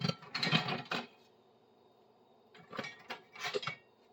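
Tools and objects being handled and shifted on a workbench: rubbing, scraping and light knocking, in a bout lasting about a second at the start and another shorter bout near the end.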